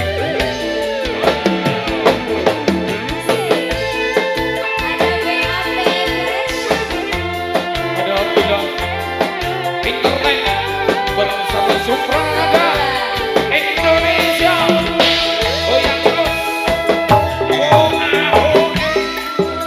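Live dangdut band playing an instrumental passage: an electric guitar leads the melody with bending notes over kendang hand drums, keyboard and a steady bass pulse.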